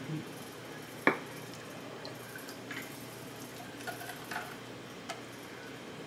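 A metal ladle clinking against a glass measuring cup of pickle brine: one sharp clink about a second in, then a few lighter clicks and taps.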